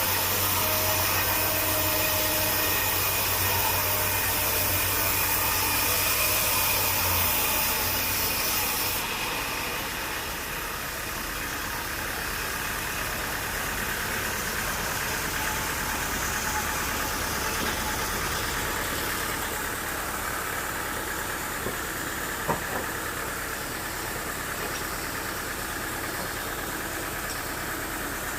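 An engine running steadily. A louder, high hiss lies over it for the first nine seconds or so and stops abruptly. One sharp click comes about 22 seconds in.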